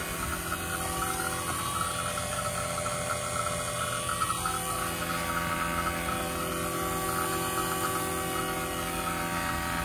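Fieldpiece rotary-vane vacuum pump running steadily, evacuating the refrigerant line set of a newly installed heat pump. It gives a steady hum with several fixed tones.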